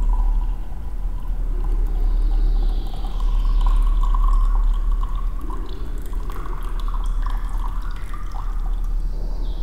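Liquid trickling and dripping as the green ascorbic acid solution is slowly poured off from a glass beaker into another glass, decanting it from the settled copper nanoparticles. A steady low hum runs underneath.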